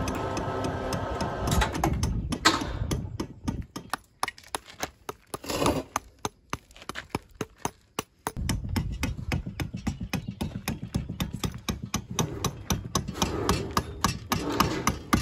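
Mason's hammer striking and chipping stone to shape it, a run of sharp knocks, some single heavy blows, then quicker lighter taps in the second half.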